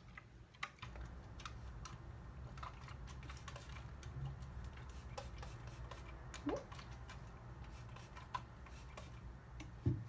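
Hand-held trigger spray bottle squeezed again and again, a string of quick irregular clicks and short spritzes as water is misted onto a section of hair. A low steady hum starts about a second in.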